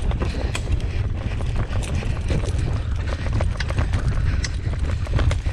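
A team of Siberian huskies running in harness along a leaf-littered dirt trail: the patter of paws and the crackle of twigs and leaves, many irregular sharp clicks, over a steady low rumble of the rig moving along the trail.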